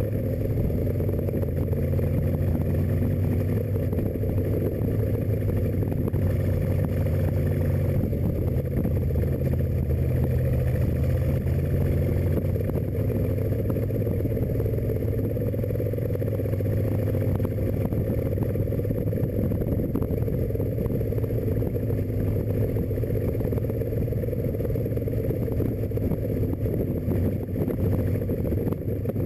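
Rat rod's engine running at a fairly steady cruise speed while driving, breathing through a home-built intake and Stromberg carburetors.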